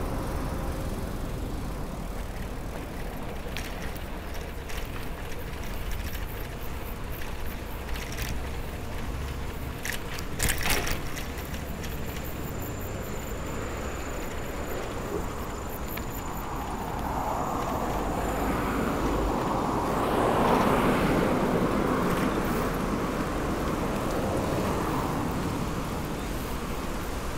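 Mamachari city bicycle being ridden: a steady low rumble of tyres and wind with a few light rattling clicks from the bike. About halfway through, a louder rushing sound swells, peaks and slowly fades, like traffic passing.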